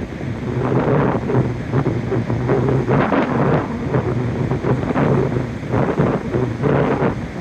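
Large ocean waves crashing and rolling in on the beach, with strong wind gusting and buffeting the microphone throughout.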